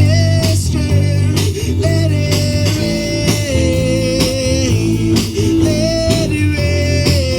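Live gospel worship music: a band with guitar, bass and drums under a melody of long held notes.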